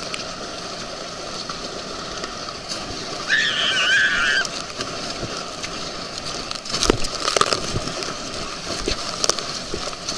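Water rushing and spraying around a towed inflatable tube as it skips across a motorboat's wake, with sharp slaps and splashes from about seven seconds in. A brief high, wavering cry about three seconds in.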